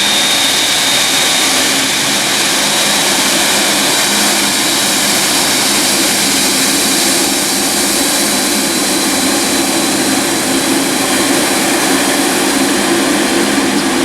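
Jet airliner engines running loud and steady. A high whine fades about two seconds in, and lower tones grow stronger in the second half.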